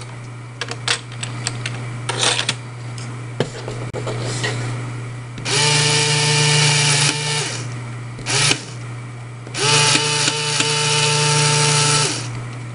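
LEGO electric motor whirring as it drives the worm gear and the rammer wheel, in two runs of about two seconds each, a few seconds in and again near the end. Before the first run, plastic LEGO parts click as they are handled.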